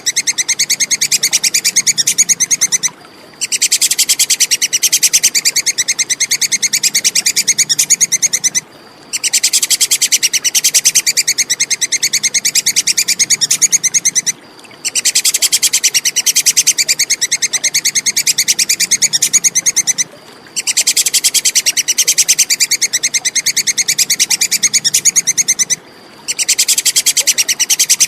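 Tupai kekes squirrel giving its fast chattering call: a rapid string of sharp high notes in runs of about five and a half seconds, each broken by a brief pause.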